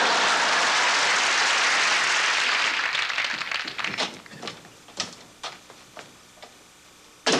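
Studio audience applause, loud at first and dying away over about three seconds into a few scattered claps. Near the end there is one sharp, loud knock, a door shutting.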